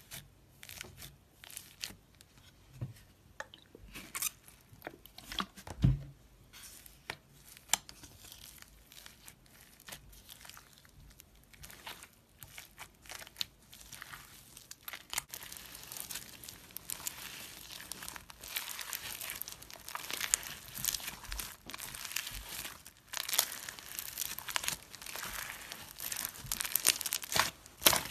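Floam, a pink slime packed with small foam beads, being squeezed and pressed by hand, giving a run of sharp crackles and clicks. The crackling is sparse at first and grows denser and louder about halfway through.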